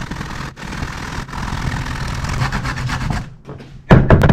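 Kukui nut being grated on a metal hand grater, a steady dry rasping. It dips near the end, then a sudden loud knock sounds.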